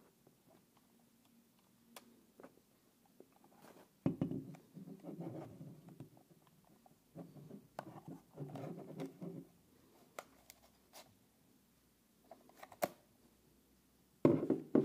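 Hands handling a DJI Mini 2's plastic remote controller: scattered clicks and stretches of rubbing and scraping as it is turned over and its phone-holder clamp is pulled open, with a short louder rustle near the end.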